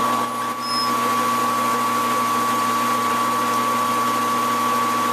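Metal lathe running at slow speed while a chamber reamer cuts into a rifle barrel under flowing coolant: a steady whir with an even, high whine, dipping briefly just under a second in.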